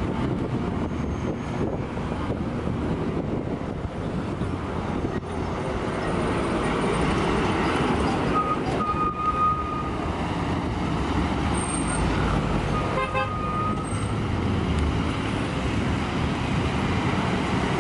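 Busy road traffic: heavy trucks, minibuses and motorcycles passing close by in a continuous rumble of engines and tyres. Vehicle horns beep briefly a little before halfway and again a few seconds later.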